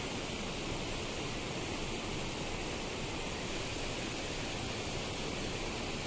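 Shallow stream water rushing and splashing over rocks, a steady even rush.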